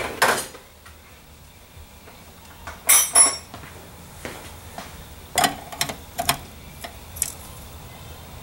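Metal hand tools clinking as a wrench is fetched and put to a fitting. The clinks come one at a time, with the loudest pair ringing about three seconds in and a few lighter ones a couple of seconds later.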